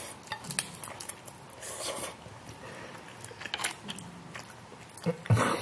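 A person eating thick udon noodles close to the microphone: slurping them in, then chewing with many small wet mouth clicks.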